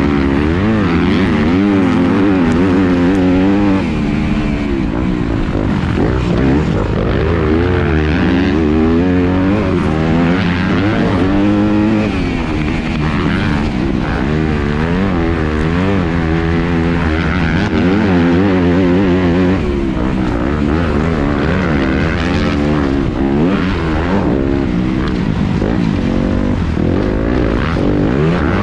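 Onboard sound of a 2019 Yamaha YZ250F four-stroke single-cylinder motocross bike being ridden hard on a dirt track: the engine revs rise and fall over and over as the rider accelerates, shifts and rolls off for corners, over a steady rush of wind and dirt noise.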